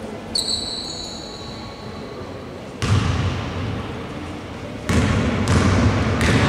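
Indoor basketball court sounds: a high, steady, whistle-like tone lasting about two seconds near the start, then a basketball bouncing and players moving on the hardwood floor as play picks up.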